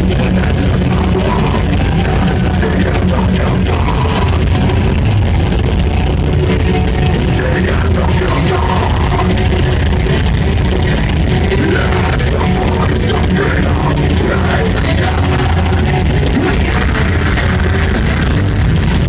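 Death metal band playing live at full volume: distorted guitars, bass and drums in a dense, unbroken wall of sound.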